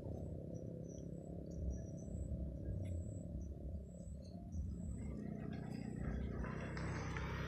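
Outdoor ambience: a steady low rumble with scattered short, high chirps. A rushing noise builds near the end.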